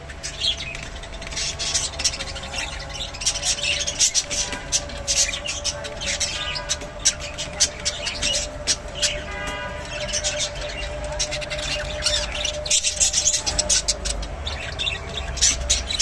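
Budgerigars chattering during courtship feeding: a quick, unbroken stream of short high chirps and squeaks, with a brief warble about nine seconds in.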